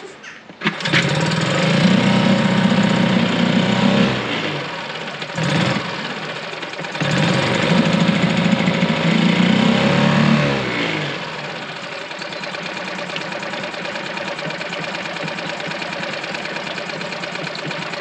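A new four-stroke petrol outboard motor, choke on, catches on a pull start under a second in and runs fast and loud. It dips and surges again, then its speed falls away about eleven seconds in to a steady idle.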